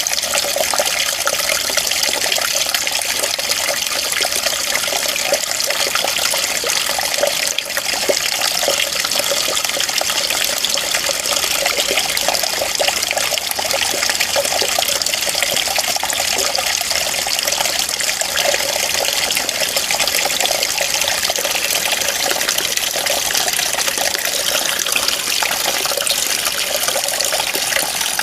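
Running water, a steady splashing hiss with no pauses.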